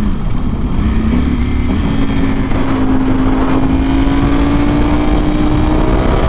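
Ducati Panigale V4R's V4 engine through an Akrapovic exhaust, pulling under load. Its pitch dips briefly at the start, then climbs steadily as the bike accelerates.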